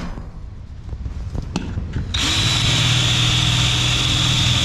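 Ryobi ONE+ cordless drill with a 1/4-inch bit boring pilot holes through 1/8-inch aluminum sheet. It stops at the start, leaving a short pause with a couple of clicks, then starts again about two seconds in and runs with a steady high-pitched whine.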